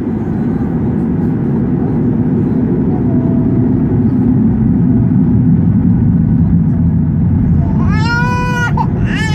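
Boeing 737-800's CFM56-7B turbofan engine spooling up for takeoff, heard from inside the cabin: a steady rumble that grows louder over the first few seconds. Near the end a baby cries out loudly, its pitch rising and falling.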